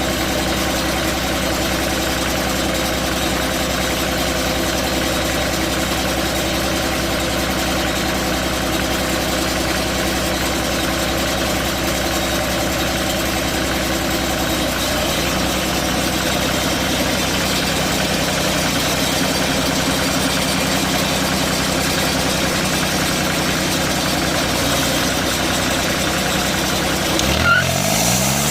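Portable sawmill's engine running steadily. Its note shifts slightly about halfway through, then rises briefly near the end.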